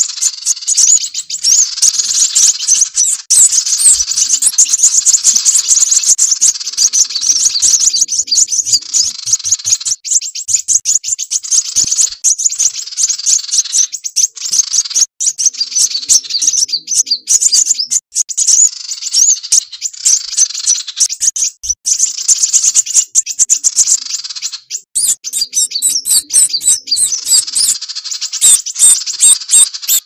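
Dense, rapid high-pitched chirping and twittering of kolibri wulung sunbirds mixed with the calls of another small bird, a bird-trapping lure recording. It runs almost continuously with a few short breaks, and turns to sharper, separate chirps in the last few seconds.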